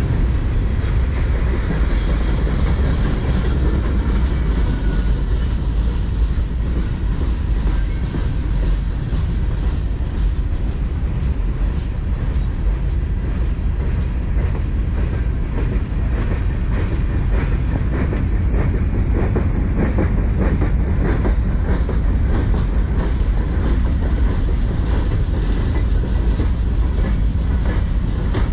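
Freight cars of a mixed manifest train rolling past: a steady, loud low rumble with a continual run of wheel clacks, busiest about two-thirds of the way through.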